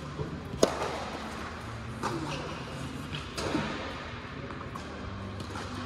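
Tennis ball struck by rackets in a doubles rally: a sharp serve strike about half a second in, then further hits about every one and a half seconds, each echoing in a large indoor hall.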